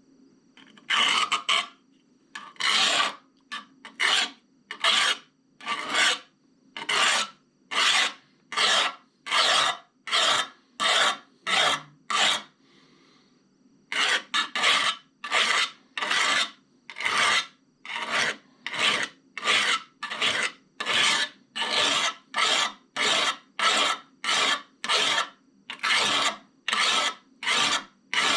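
A 180-grit diamond hone rasping back and forth over a steel scissor blade, hand-held and worked like a file, with strokes about once a second. The strokes stop for a second or so in the middle, then go on at an even pace.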